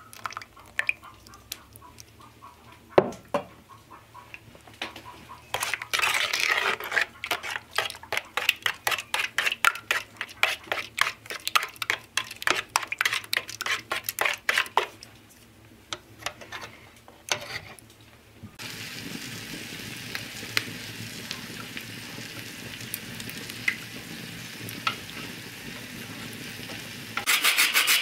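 Cream and eggs being whisked by hand in a tin pail: quick, steady strokes scraping and clicking against the metal for about ten seconds, after a single knock about three seconds in. Then a steady hiss with occasional crackles, and near the end a hand grater begins rasping in fast, even strokes.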